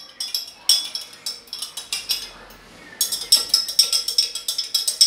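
A spoon stirring lassi ingredients (curd, sugar and water) in a glass jug, clinking rapidly against the glass in quick runs, with a short lull about two seconds in.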